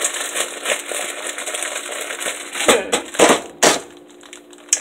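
Plastic bag crinkling as it is handled and opened, a dense run of small crackles, followed about three seconds in by three louder rustling knocks.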